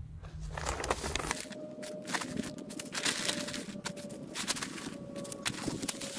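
Sand being shovelled with a plastic scoop into a fabric parasol-base sandbag, the bag's fabric rustling as it is handled: irregular gritty crackles and scrapes.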